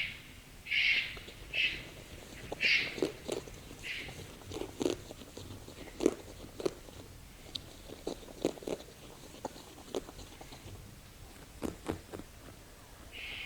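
Common wombat rasping calls: a run of short, harsh rasps about once a second, then one more near the end, calls often given when two wombats are in a dispute. In between come crisp crunching clicks, as of a wombat grazing and chewing.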